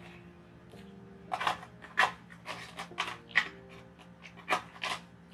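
Close-miked eating sounds: short, noisy bursts of chewing and breathing, about seven in all, over quiet background music.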